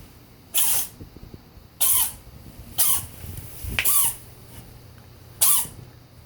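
A cat sneezing five times in a row, short sharp sneezes about a second apart.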